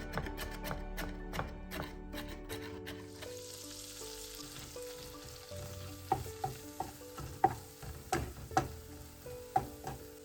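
Food sizzling in a hot frying pan with a steady hiss, with a utensil knocking and clicking against the pan several times in the second half as the food is stirred.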